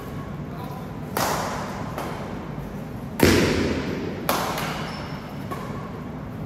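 Badminton rackets hitting the shuttlecock in a rally: three sharp hits, the second the loudest, each echoing on in the hall.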